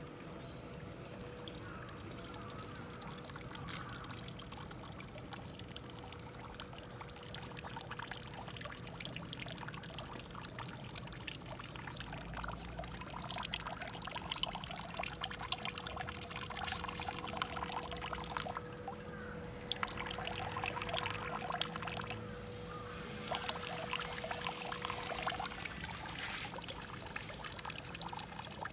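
Water pouring and trickling, a busy splashing that grows heavier about halfway through, with a faint steady tone that stops near the end.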